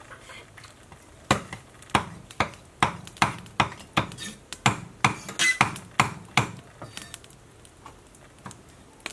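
Cleaver chopping boiled pork intestine on a wooden chopping block: a run of irregular knocks, about two or three a second, starting about a second in and stopping after about five seconds.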